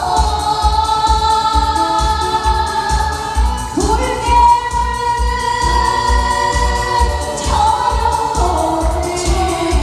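A female gugak singer sings into a microphone over a backing track with a steady bass beat, holding one long note through the middle.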